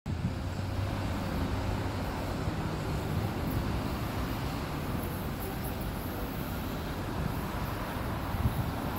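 Steady outdoor urban background noise: a low rumble under an even hiss, with no single distinct event.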